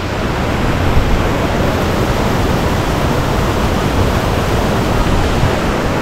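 Steady, loud rush of a waterfall's fast-flowing water.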